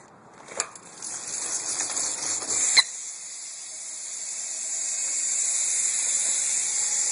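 BMX rear wheel spinning, its Primo hub's ratchet giving a fast, steady high-pitched buzz. A light click about half a second in and a sharp, loud click about three seconds in.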